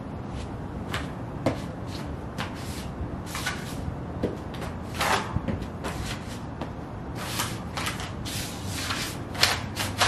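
Sheepskin Ugg boots stepping and scuffing on concrete, then treading on a folded glossy magazine, making a string of irregular scrapes, taps and paper crinkles.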